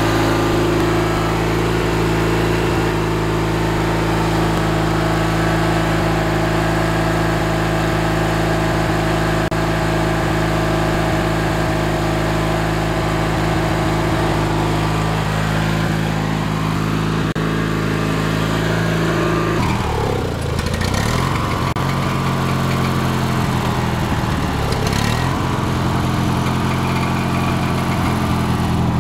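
Twin-cylinder Briggs & Stratton engine of a Craftsman LT4000 riding lawn tractor running steadily, changing speed about twenty seconds in.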